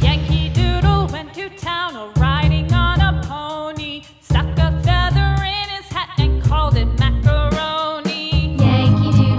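Background music: an upbeat song with a steady beat and bass, and a melody line that sounds sung.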